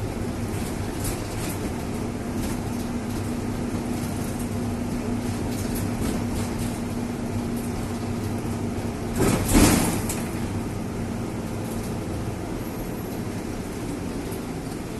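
A motor vehicle running steadily with a faint hum, and a brief louder rush of sound about nine seconds in.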